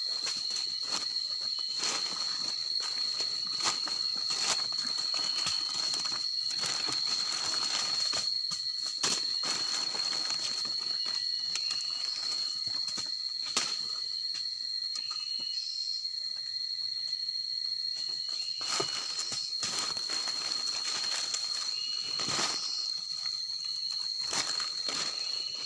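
A steady, high-pitched insect drone over frequent crackling rustles of dry leaf litter, with a few short high chirps.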